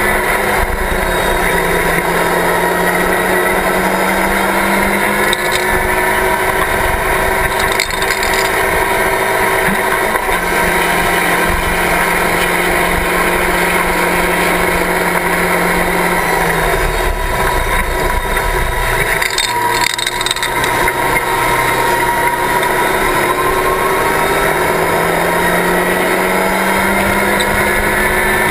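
Locost race car's engine pulling hard at high revs, heard from the open cockpit over a steady rush of wind and road noise. The revs hold high, drop off about two-thirds of the way through, then climb steadily again near the end.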